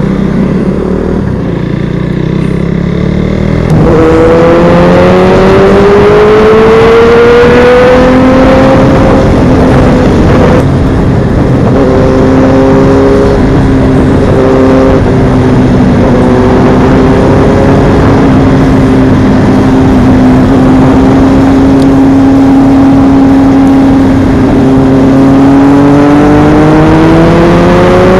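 Motorcycle engine accelerating hard about four seconds in, its pitch rising and stepping down at a few gear changes, then holding a steady note at speed before climbing again near the end, over a steady rush of noise.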